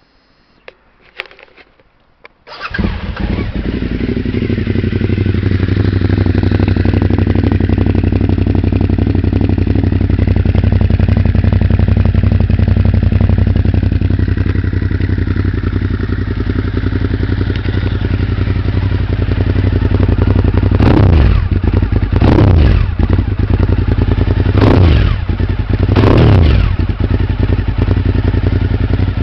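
2006 Suzuki SV1000S's V-twin engine, breathing through Scorpion aftermarket exhaust cans with a deep sound. After a few clicks it starts about two and a half seconds in and settles into a steady idle. Near the end it is blipped four times, the pitch rising and falling quickly each time.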